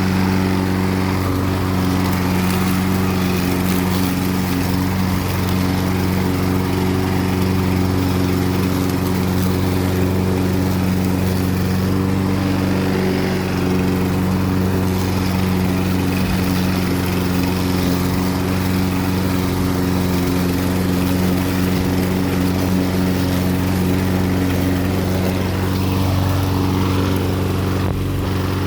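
Toro lawn mower engine running steadily at a constant speed while cutting grass.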